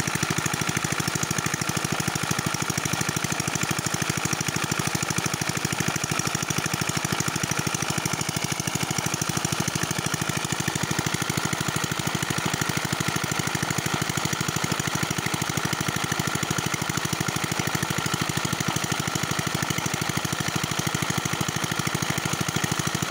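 Old hopper-cooled single-cylinder diesel engine running steadily under load, driving an irrigation water pump, with a fast, even knocking beat. Water gushes and splashes from the pump outlet.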